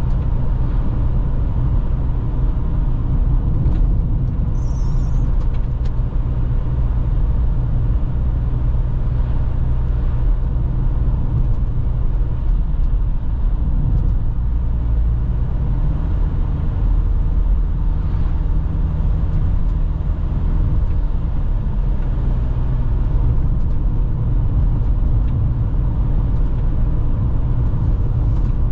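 A vehicle driving at a steady cruising speed: a constant low rumble of engine and tyres on the road.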